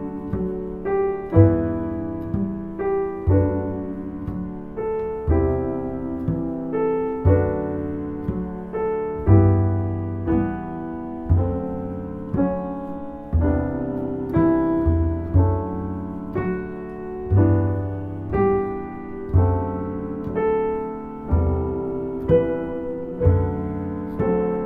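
Background piano music: a gentle melody of struck notes that ring and fade, over low bass notes every second or two.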